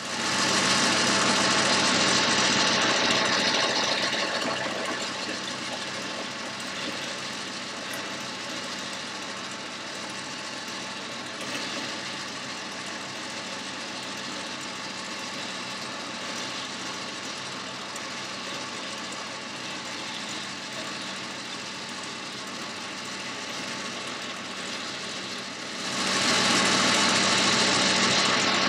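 Boxford lathe running with its chuck spinning while a boring bar cuts an 8 mm bore: a steady machine hum with a hiss of cutting over it. The hiss is louder for the first few seconds and again near the end.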